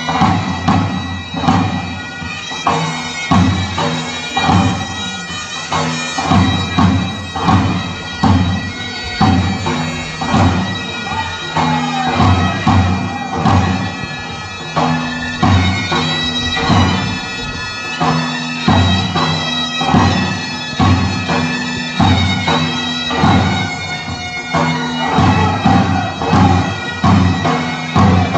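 Bulgarian bagpipe (gaida) playing a fast folk dance tune over its steady drone, with a large double-headed drum beating a steady rhythm.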